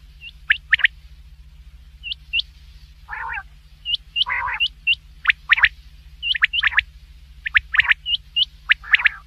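Recorded quail calls for luring quail: quick pairs and triplets of sharp falling whistled notes mixed with short upturned chirps, and two brief rasping calls about three and four and a half seconds in, over a steady low hum.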